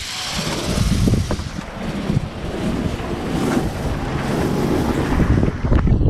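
Wind buffeting the microphone in gusts, over the rush of choppy sea.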